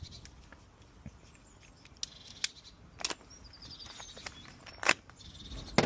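Scattered sharp clicks and light knocks as small brass cable-gland fittings and a plastic parts packet are handled, the loudest clicks near the end. Birds chirp faintly in the background.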